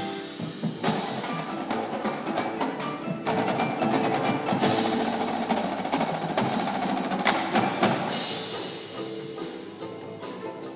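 Indoor percussion ensemble performing: marching drumline strokes over sustained mallet keyboards such as marimba. The playing is densest and loudest for most of the passage and eases off near the end.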